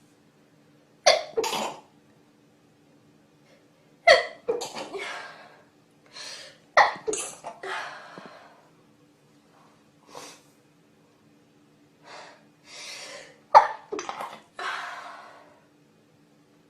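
Repeated sneezing: four loud bouts, each a sudden sharp burst trailing off into breathy snorts, with softer puffs of breath between them.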